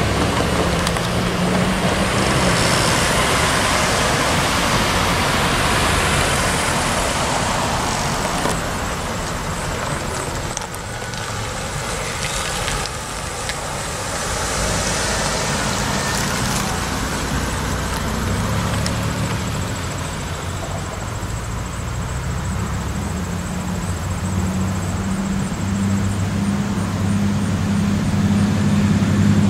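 Diesel passenger locomotive running with a steady low throb as its coaches roll along the rails; the rolling noise eases after the first several seconds, and the engine grows louder near the end as the locomotive draws closer.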